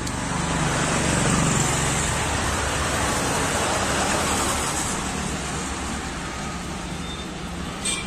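Road traffic noise, a vehicle going past: a rushing sound that swells about a second in and slowly fades, with a short click near the end.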